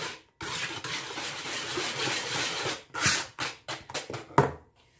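Metal balloon whisk beating egg yolks, sugar and melted butter in a plastic bowl: a steady swishing scrape for a couple of seconds, then a run of separate clicks and knocks of the whisk against the bowl, the loudest one near the end.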